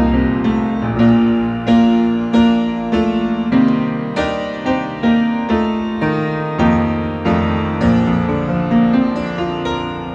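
Grand piano playing a slow, steady run of chords, a new chord struck about every two-thirds of a second and left to ring into the next.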